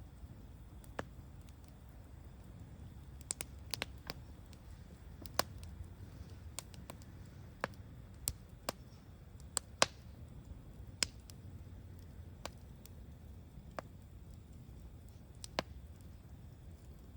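Wood fire crackling: irregular sharp pops and snaps over a low, steady hiss of burning.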